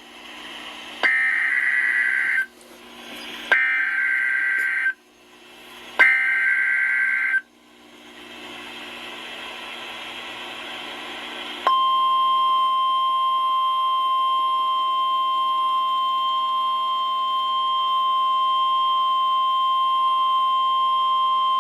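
NOAA Weather Radio emergency alert: three short bursts of screeching SAME header data, each about a second and a half long with brief gaps between them, then a few seconds of radio hiss, then the steady 1050 Hz warning alarm tone, which begins about twelve seconds in and holds for about ten seconds. The alert opens a severe thunderstorm warning.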